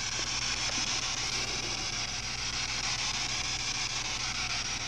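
Steady hiss with a low hum underneath, the recording's own noise floor in a quiet room, with no distinct event.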